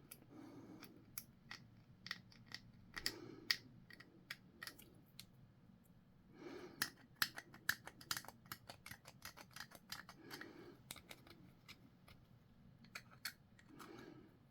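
Hobby sprue clippers snipping plastic model-kit parts off the sprue: a series of faint, sharp clicks and snips in scattered clusters, with soft handling noise of the plastic pieces in between.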